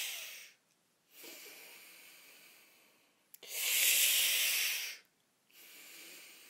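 A woman's hissing breath exercise: air sucked in through the teeth with a loud hiss, then let out quietly through the nose, in two cycles. The first hissing in-breath ends about half a second in, the second runs from about three and a half to five seconds in.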